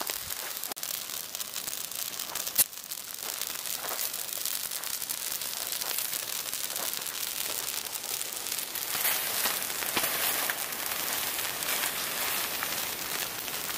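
A big heap of spruce boughs burning as a signal fire: a dense, steady run of crackles and pops, with one sharp snap a little over two seconds in.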